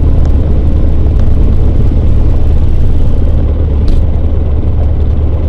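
Cessna 150's Continental O-200 four-cylinder engine and propeller droning steadily in the cockpit as the takeoff begins, with a brief click about four seconds in.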